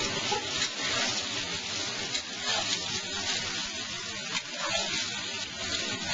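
Eggplant and garlic frying in oil in a pan: a steady sizzle with small crackles.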